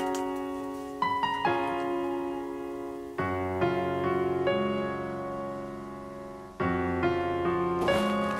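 Background piano music: gentle chords and melody notes struck every couple of seconds, each ringing on and fading.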